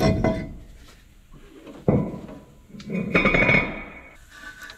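Metal clanking and rattling as parts and tools are handled: a clatter at the start, a sharp knock about two seconds in, and a longer rattle with a faint ring a second later.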